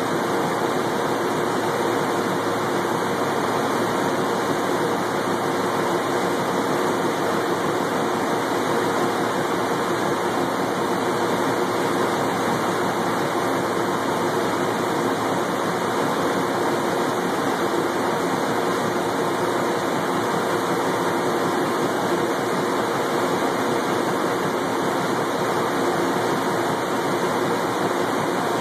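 Laser engraver running while it engraves a wooden barrel head: a steady, even rush of air noise from its fans and air assist, with a faint hum underneath.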